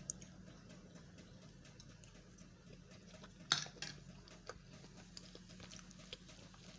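Faint small clicks and one short knock about three and a half seconds in: quiet sounds of someone eating and handling tableware.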